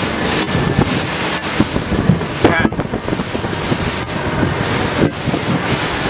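Wind buffeting the microphone of a small boat out on choppy sea, with waves slapping and splashing against the hull.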